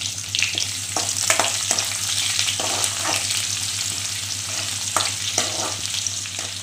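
Chopped onion, curry leaves and dried red chillies sizzling in hot oil in a metal kadai, in a tempering of mustard seeds and urad dal, with a steady hiss and frequent sharp crackles.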